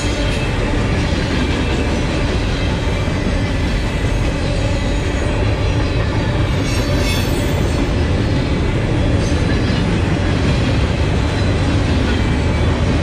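Norfolk Southern freight train of gondola cars rolling past close by: a steady, loud rumble of steel wheels on the rails.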